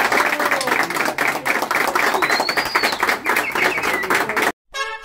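A small group of people applauding, with dense, fast clapping. Near the end the applause cuts off abruptly and music begins.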